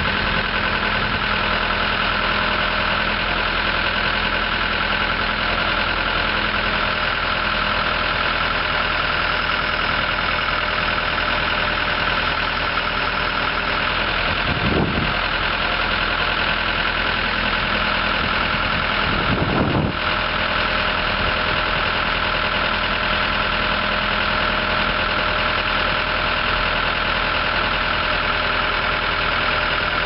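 The Case 4-390 3.9-litre four-cylinder diesel of a 1999 Case 580L backhoe runs steadily while the backhoe boom and bucket are worked, with a steady high whine above the engine. There are two brief low surges, about halfway through and again some five seconds later.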